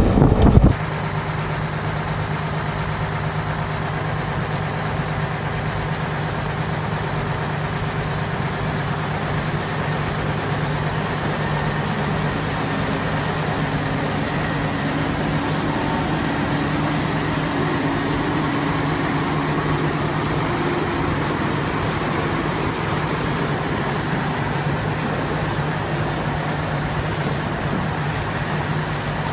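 A heavy logging truck's engine running steadily, a low, even hum that holds for the whole stretch. It comes after a louder burst of wind noise on the microphone that cuts off suddenly under a second in.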